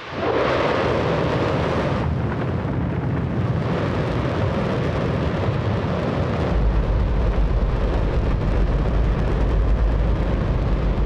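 Hydrogen-oxygen rocket engine firing on a test stand: a loud, continuous rushing roar that starts abruptly, with a heavy deep rumble coming in strongly about six and a half seconds in.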